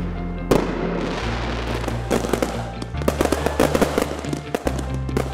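Aerial fireworks bursting and crackling: a sharp bang about half a second in, then a dense run of bangs and crackles through the middle. A music track with a steady bass line plays underneath.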